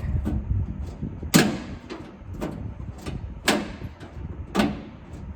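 1968 Ford F-250 cab door and its newly installed lock mechanism being worked, giving a series of sharp metallic clunks roughly a second apart, three of them louder than the rest.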